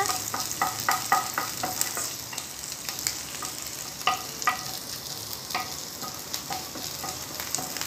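Chopped garlic and green chillies sizzling lightly in a little oil in a nonstick frying pan, stirred with a wooden spatula that knocks and scrapes against the pan in irregular clicks.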